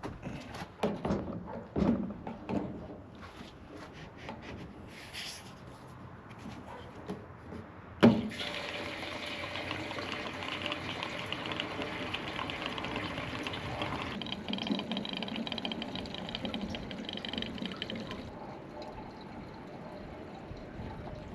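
Diesel being poured from a fuel can into a tractor's fuel tank: a few knocks and clicks of handling, a sharp click about eight seconds in, then a steady pour that changes tone partway through and eases off near the end.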